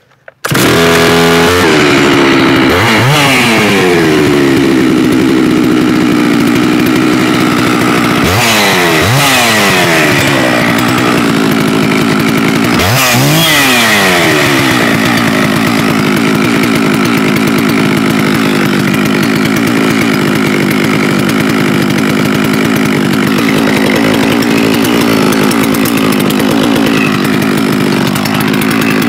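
A Holzfforma G660 92cc two-stroke chainsaw, a Stihl MS660 clone, fires up just after the start. It is revved three times, each rev rising and falling back, then runs at a steady idle.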